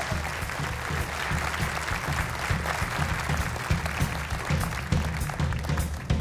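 Studio audience applauding over the house band, which plays an upbeat walk-on tune with a steady bass beat.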